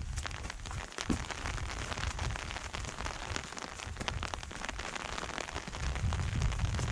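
Light rain pattering: many small irregular drop ticks over an even hiss.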